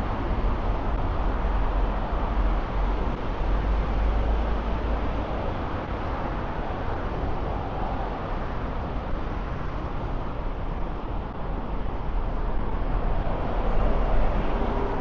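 Steady city street traffic noise: passing cars and buses blending into a continuous deep rumble and hiss, swelling slightly near the end.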